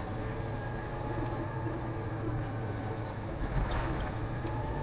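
Diesel engine of a concrete mixer truck running as the truck drives, a steady low rumble, with a tone rising slightly near the end.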